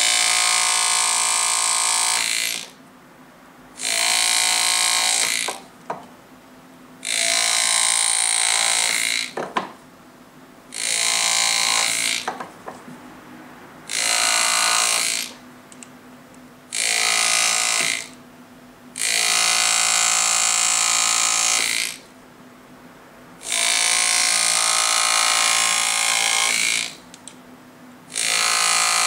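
A steel hand burin cutting into a gold signet ring, bright-cutting the engraved letters. It makes about eight scraping strokes of two to three seconds each, with short pauses between them.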